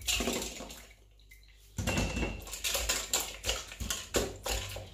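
Blanched broccoli tipped from a plastic colander into a stainless steel bowl of cold water and moved about by hand: light splashing and irregular knocks against the bowl, with a short pause about a second in.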